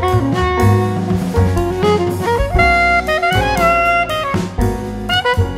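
Background music: an upbeat jazz-style tune with a saxophone-like lead over a drum kit.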